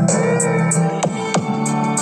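Electronic music with steady synth tones and two quick falling sweeps just past the middle, played through a homemade mini speaker set: four small 3 W, 4-ohm drivers on a small 5 V, 6 W amplifier board, with a ported sub box made from a cookie box.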